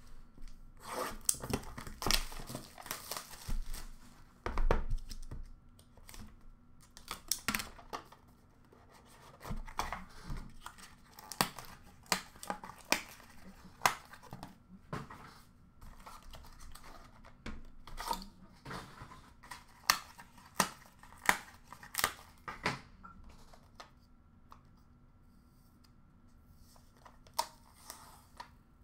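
Tearing and crinkling of packaging as a sealed hockey card box is opened, densest in the first few seconds, then scattered sharp snaps of cardboard and plastic being handled.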